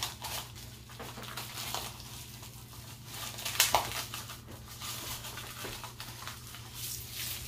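Plastic-gloved hands crumbling dried chile into shredded cabbage and tossing it in a plastic basin: a run of crackling and rustling, with one sharper click about three and a half seconds in.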